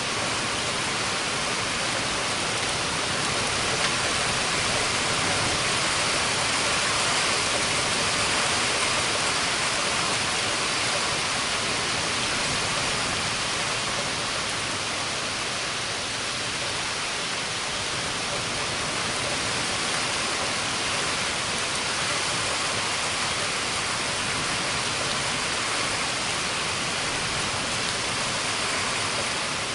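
Steady rainfall in a thunderstorm, an even hiss with no thunder heard.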